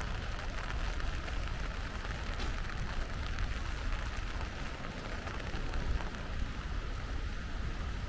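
Steady rain falling, with scattered close drops ticking, over a continuous low rush of canyon water.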